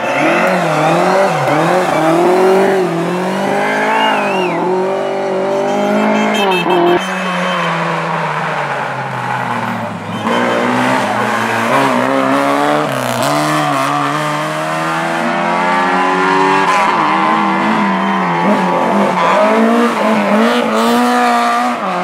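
Rally cars' engines revving hard through a hairpin, one car after another. The pitch rises and falls with each lift and gear change, with a run of quick climbing upshifts in the second half.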